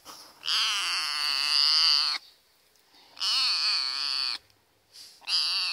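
Young tabby stray kitten meowing loudly three times. Each meow is long and high-pitched with a wavering pitch; the first is the longest, nearly two seconds.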